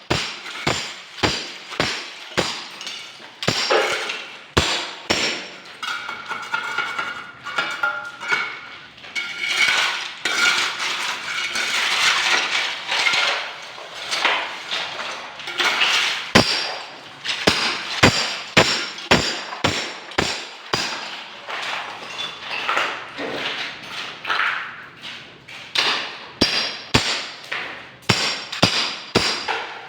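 Hammer striking again and again in irregular blows, often a couple per second, with a metallic ring after many strikes. From about 6 to 14 seconds a denser stretch of chipping and scraping fills the gaps between blows.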